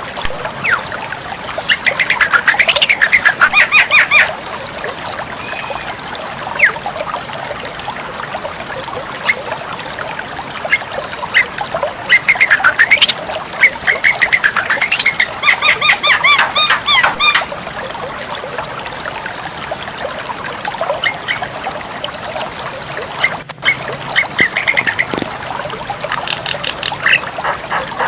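Javan myna (jalak kebo) calling in loud bouts of rapid, harsh repeated notes, two long bouts about two and twelve seconds in, with scattered single chirps between.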